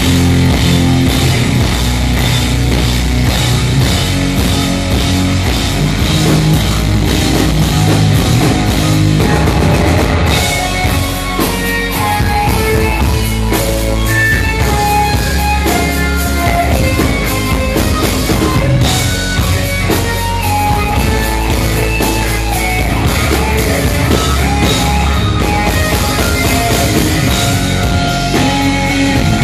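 Loud live space-rock band playing: electric guitar over bass and a drum kit.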